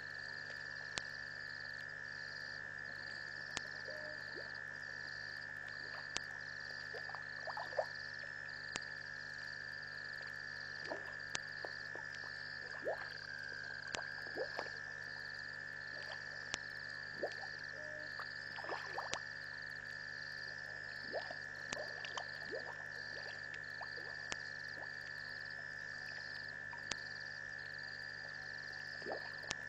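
Night chorus of frogs and insects: a steady, high-pitched trill with a regular pulsing chirp above it, broken by scattered short frog calls and a few sharp clicks.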